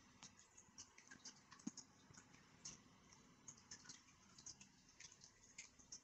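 Faint, irregular light clicks and ticks, a few each second.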